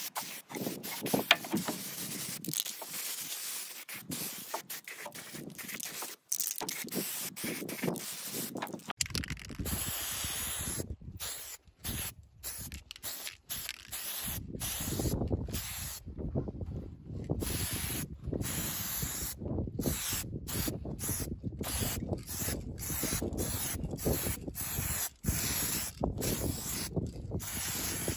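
Aerosol spray-paint can spraying: a long spray through the first several seconds, then many short bursts of hiss with brief pauses between them, as black paint goes on over rust.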